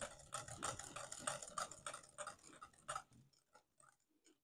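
Wire whisk beating a thick quark-and-yogurt cream in a glass bowl, ticking against the bowl at about four strokes a second as milk is worked in to make it creamy. It fades out near the end.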